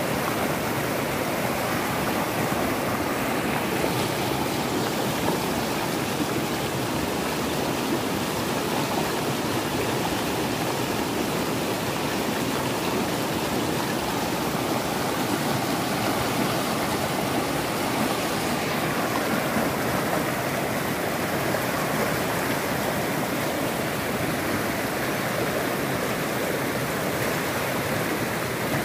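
Muddy flash-flood torrent rushing in a steady, continuous roar of churning water.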